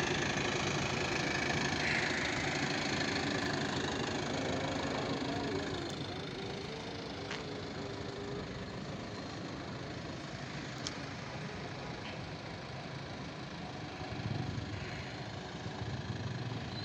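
Diesel engine of an Eicher Starline bus running as it drives slowly past and away, its sound falling off noticeably after about six seconds.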